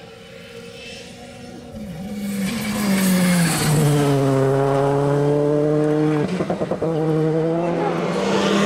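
Rally car engine at full throttle coming in and passing close, its note dropping as it goes by. A brief stutter in the sound about six seconds in, then the engine note climbs again.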